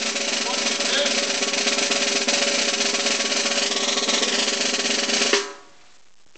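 A sustained snare drum roll, the suspense build-up before a prize reveal, that cuts off abruptly a little over five seconds in.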